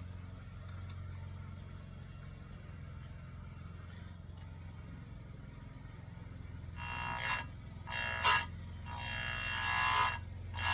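Electric chain-sharpening grinder humming steadily, then about two-thirds of the way in the abrasive wheel grinds the saw chain's cutters in three short hissing passes, the last the longest, with a fourth starting at the very end.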